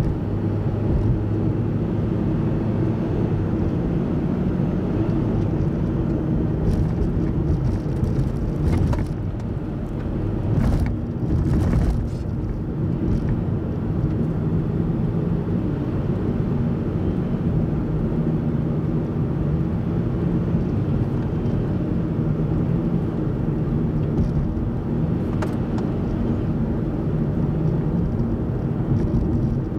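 A car driving steadily, heard from inside: continuous engine hum and road noise. A few short knocks or clatters come about 9, 11 and 25 seconds in.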